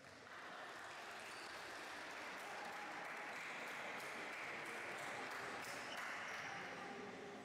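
Spectators applauding, a steady clapping that starts suddenly, holds for several seconds and eases near the end.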